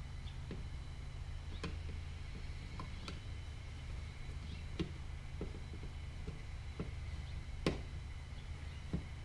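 Scattered light clicks and taps, about a dozen at irregular intervals, the sharpest about three-quarters of the way through, over a steady low hum.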